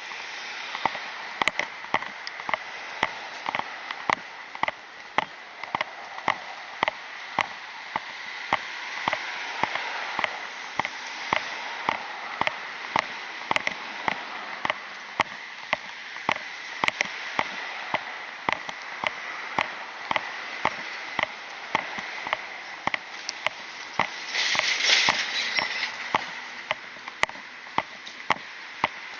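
Footsteps of a person walking at a steady pace on a hard surface, a sharp click about every 0.7 s, over a steady high hiss. A louder rushing noise swells for about two seconds near the end.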